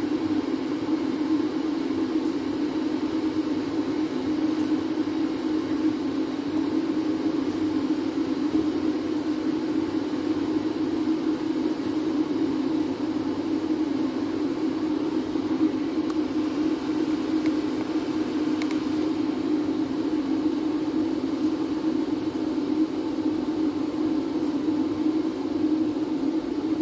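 Kitchen range hood extractor fan running with a steady, even whir that does not change.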